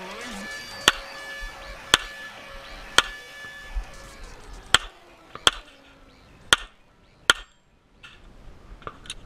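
Glock pistol firing about seven single shots, roughly a second apart, each a sharp crack. Rock music plays under the first few shots and fades out.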